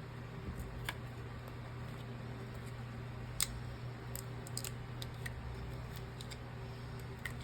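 Small hand tools clicking and tapping against an iPhone 15 as it is opened for repair: scattered light ticks, the sharpest about three and a half seconds in and a quick run of them just after four seconds, over a steady low hum.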